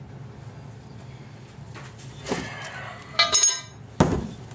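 Metal parts of a manual transmission being handled on a workbench: a knock about two seconds in, then a bright ringing clink of steel parts, the loudest sound, followed by a heavy thump near the end.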